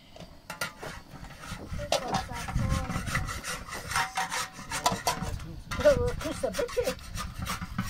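Flat metal spatula scraping and tapping on a domed iron saj griddle as thin flatbread is worked and turned: a quick run of rasping strokes.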